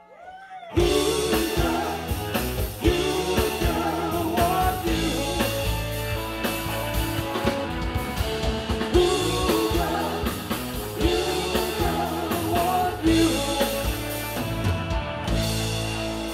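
Live rock band playing: electric guitars, keyboard, bass and drum kit. The music drops out briefly at the very start, the full band crashes back in under a second in, and near the end it settles onto a held, ringing chord.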